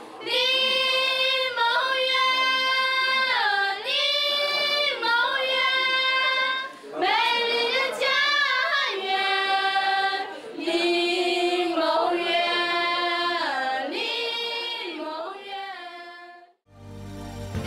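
A group of young women singing a welcome song together without accompaniment, in unison, with long held notes that slide between pitches and short breaks between phrases. About a second before the end it cuts abruptly to instrumental music with a heavy bass.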